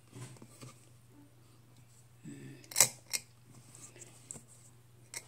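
A stainless steel kettle being handled, giving two sharp metal clicks about a third of a second apart a little under three seconds in, with a few fainter knocks before them. A steady low hum runs underneath.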